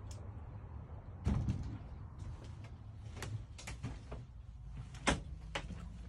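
Short knocks and clicks inside a motorhome over a low steady hum. There is a dull thump about a second in, a run of clicks around three to four seconds, and a sharper knock near five seconds in.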